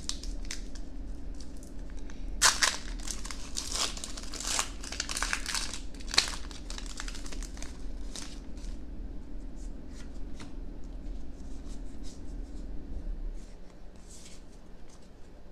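A foil Pokémon trading-card booster pack wrapper crinkling and tearing as it is ripped open, with dense crackling over the first half. Lighter clicks and rustles follow as the cards inside are pulled out and fanned.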